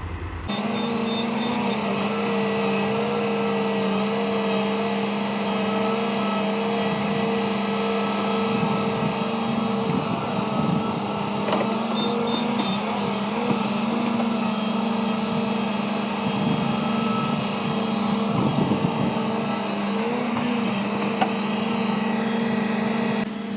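Hitachi Zaxis excavator's diesel engine and hydraulics running steadily under working load, a constant drone whose pitch dips and lifts slightly now and then, with a few light knocks.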